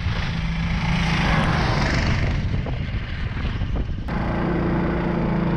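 Homemade snow vehicle's 20-horsepower engine running under load as it drives across snow, with wind rushing on the microphone. About four seconds in the sound changes abruptly to a steadier, closer engine drone.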